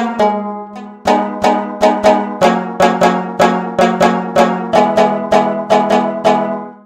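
A sampled plucked string instrument from the SwarPlug 4 Indian-instrument plug-in playing a steady run of notes, about three a second, over a sustained low note. It stops abruptly near the end.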